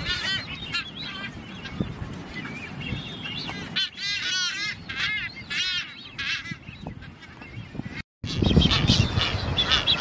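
Blue-footed boobies calling: a run of short arching calls, several a second at the busiest, loudest around the middle. About eight seconds in the sound cuts out briefly and returns with a louder low rumble under more calls.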